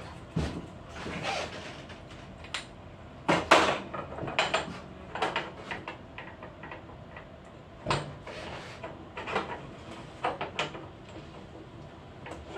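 Parts of a Lavazza Espresso Point EP 2100 capsule coffee machine being handled and fitted inside its opened housing: a string of irregular clicks, knocks and rattles, loudest about three and a half seconds in.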